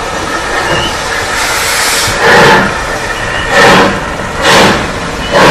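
Midland Railway 4F 0-6-0 steam locomotive No. 43924 pulling away from a standstill. Its exhaust chuffs start about two seconds in and come four times, each quicker after the last, over a steady hiss of steam as the train gathers speed.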